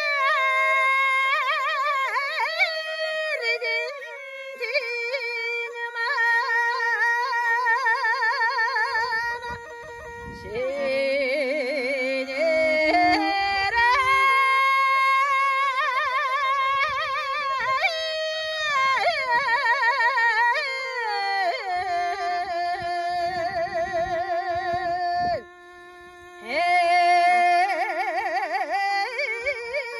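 Mongolian long song (urtyn duu): a woman sings long held notes broken by rapid, wavering ornamental trills, accompanied by a bowed morin khuur (horsehead fiddle).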